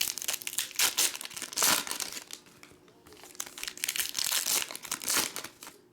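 Foil trading-card pack wrappers crinkling in the hands, in irregular bursts, loudest about a second and a half in and again near the end.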